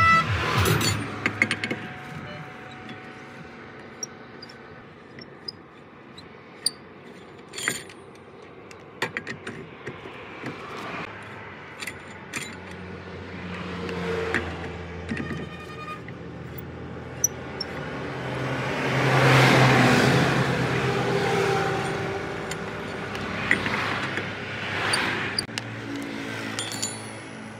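Sharp metallic clinks and light scrapes of a steel four-way cross lug wrench and lug nuts as a car wheel's nuts are worked, with a brief fast run of clicks near the middle. A passing vehicle swells and fades about two-thirds of the way in.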